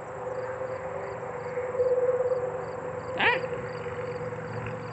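Crickets chirping in a regular rhythm about twice a second over a steady hum.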